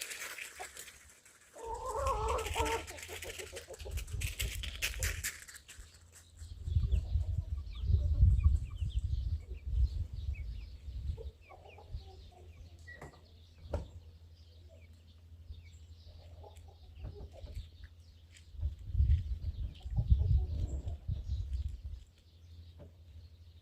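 Backyard hens clucking, with a louder, stacked call about two seconds in and scattered short clucks after. Bursts of deep low rumble come and go underneath.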